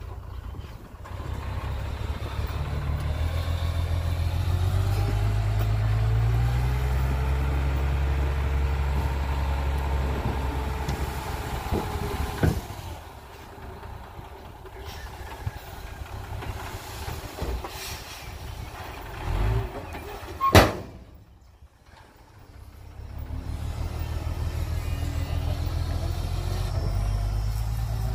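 Hyundai dump truck's diesel engine running hard with a rising whine while the tipper bed is raised and the load of soil slides out. The engine eases about halfway through, a sharp bang rings out about 20 seconds in, and the engine then picks up again as the truck pulls away.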